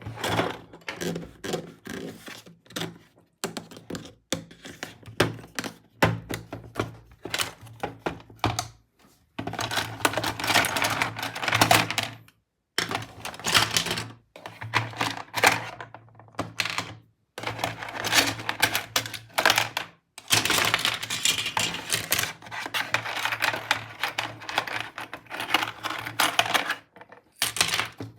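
Small plastic toy parts clicking, tapping and rattling as they are handled, with two longer stretches of dense rattling and brief pauses between bursts.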